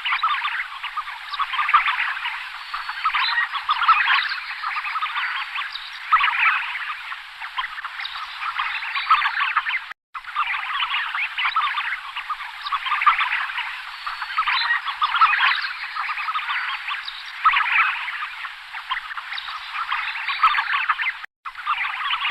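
A flock of tufted ducks calling: many short croaking calls overlapping in a dense, continuous chatter. The sound cuts out for an instant about ten seconds in and again near the end.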